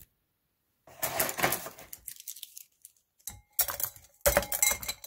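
Paintbrushes and pens clattering into a glass tumbler, rattling against the glass and each other: a long rattle about a second in, then three shorter ones near the end.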